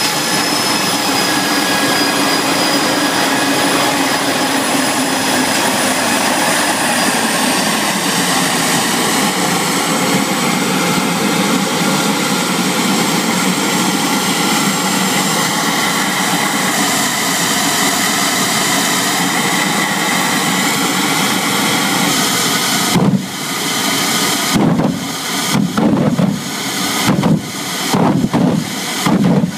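Twin home-built jet engines on a Mini drag car running with a steady loud rush and a high turbine whine, the whine dipping slightly early on. Near the end the sound drops away sharply and briefly several times.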